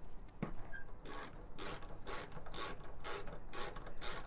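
Hand ratchet with a 4 mm Allen bit clicking in short runs about twice a second as it backs out a bolt.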